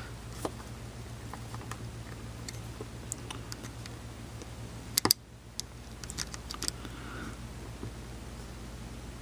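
Small screwdriver tightening the tiny screw on a banana plug: faint scattered clicks and scrapes of metal on metal, with two sharper clicks about five seconds in, over a steady low hum.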